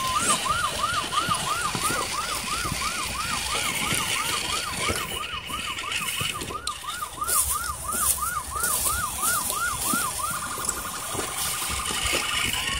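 Electronic siren yelping, its pitch sweeping up and down about three times a second, switching near the end to a fast steady warble.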